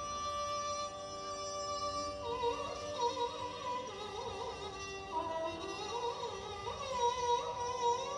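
Instrumental background music: steady sustained tones, with a sliding, ornamented melody line coming in about two seconds in.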